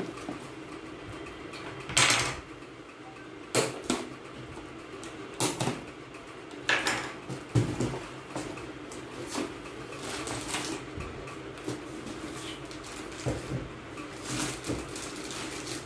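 Cardboard motherboard box being opened and handled: scattered rustles, scrapes and light knocks, a few seconds apart, over a steady low hum.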